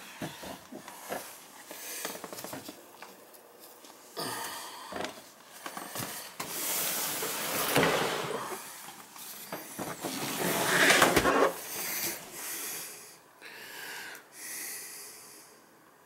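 A man breathing heavily through nose and mouth, several loud exhalations a few seconds apart, the loudest about halfway through and about two-thirds of the way in.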